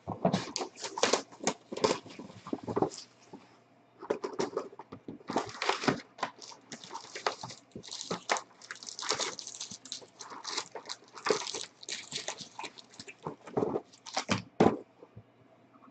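Hands handling and opening card-box packaging: plastic wrap crinkling and tearing in irregular bursts, with clicks and short pauses.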